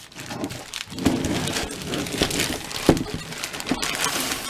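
Plastic shrink-wrap film crinkling and crackling as it is pulled off a cardboard laptop box, with a few sharper crackles along the way.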